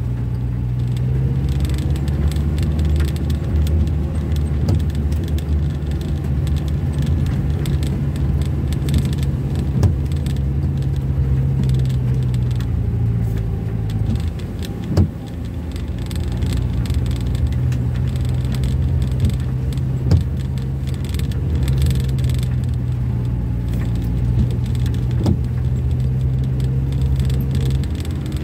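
Steady engine and tyre drone of a car heard from inside the cabin, easing briefly about halfway through, with a few sharp knocks and light rattles from loose things in the car.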